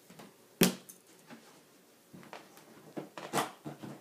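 Packing blocks being pulled from a large cardboard box: a sharp knock about half a second in, then lighter knocks and rustling of cardboard, with a louder cluster of knocks near the end.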